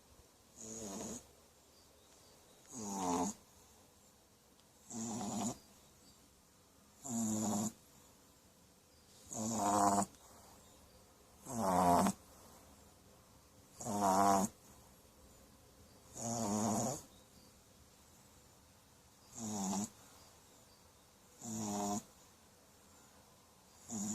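Puppy snoring in its sleep: a regular snore about every two seconds, each one short and pitched, with a hiss of breath.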